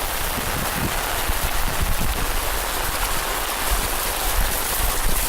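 Steady rush of water from heavy rain, with a low, uneven rumble of wind on the microphone.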